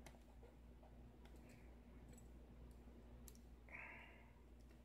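Faint, sparse clicks of tweezers picking small lock pins and loading them into a Euro cylinder's pin chambers, with a brief scrape about four seconds in. A low steady hum lies underneath.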